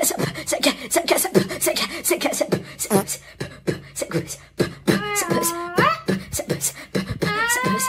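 Backing track of a beatboxed music piece: quick vocal-percussion beats at about four a second. About five seconds in, a sung or hummed tune slides upward, and near the end a held tune steps between notes.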